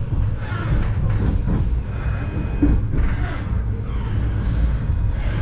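Steady low rumble heard from inside the passenger saloon of a 71-931M Vityaz-M low-floor tram running on its rails, with wheel and track noise over it.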